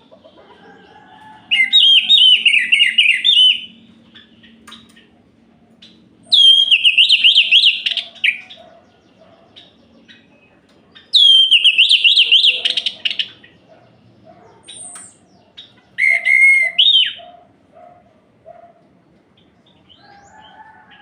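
Orange-headed thrush singing: four loud, rapidly warbling phrases of about two seconds each, some five seconds apart, the last shorter, with a brief higher note between the third and fourth.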